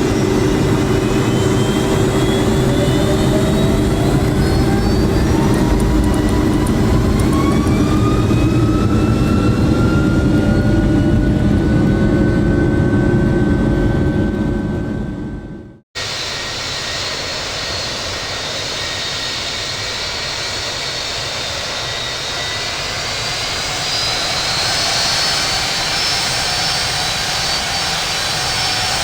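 Boeing 757 jet engines on takeoff: a heavy rumble with whines rising in pitch as the engines spool up. About halfway through the sound fades and cuts off abruptly. It then resumes quieter, and a high whine rises again near the end.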